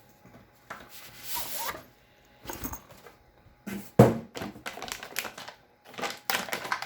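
Packaging and contents being handled during an unboxing: rustling and sliding, scattered clicks, and one sharp knock about four seconds in, then a quick flurry of small clicks and rattles near the end.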